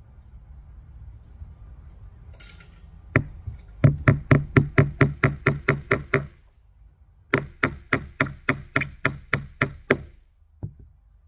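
Claw hammer striking repeatedly in two fast runs of about four to six blows a second, each blow ringing briefly; a pause separates the runs, and a single last blow comes near the end.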